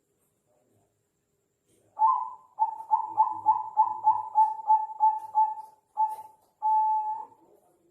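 Zebra dove (Bangkok perkutut) cooing its song. About two seconds in comes an opening note, then a quick run of about a dozen short coos at roughly four a second, and the phrase closes on a longer held note.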